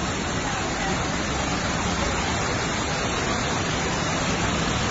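Steady rushing of fast floodwater running through a street, with heavy rain, an even unbroken hiss.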